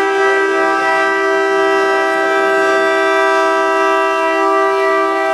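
A train horn sounds one long, steady two-note chord, held unbroken for several seconds.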